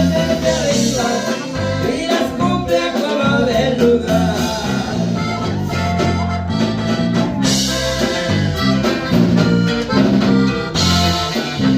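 Norteño music: accordion playing over a steady bass and guitar beat.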